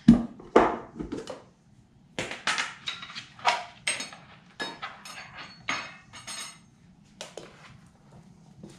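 A few sharp knocks as a plastic lid comes off a bowl and is set down on the counter. About two seconds in, a run of light taps and scrapes follows as a wooden spoon works sliced banana across a plastic cutting board.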